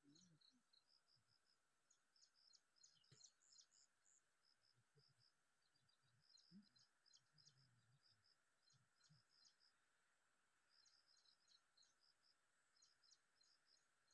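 Near silence: faint outdoor ambience with quick, high chirps repeating throughout.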